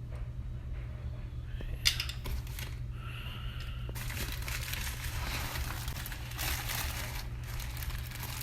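Packaging crinkling and rustling as a parcel of replacement winch parts is unpacked, with a sharp click about two seconds in and a longer stretch of rustling from about halfway in.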